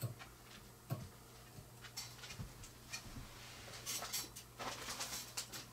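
Faint scratching and light ticking of fly-tying handwork as dubbing is picked out on the fly's body, busiest about four seconds in, over a low steady hum.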